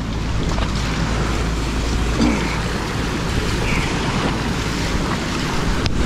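River rapids rushing and splashing against an inflatable raft, a steady loud rush of whitewater mixed with wind buffeting the microphone.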